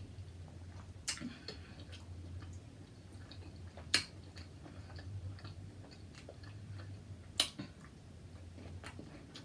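A person chewing and biting seafood close to the microphone, with sharp wet clicks and cracks about one, four and seven and a half seconds in, over a steady low hum.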